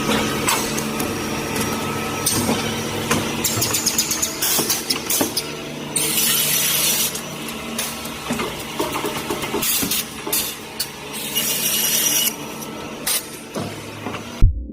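Automatic wood sawmill machinery running, with a steady mechanical hum, clatter and clicks. Louder hissing stretches of about a second come around six and twelve seconds in. Electronic music with heavy bass thumps comes in at the very end.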